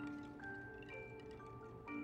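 High school marching band playing a quiet, slow passage of held notes that move to new pitches about every half second.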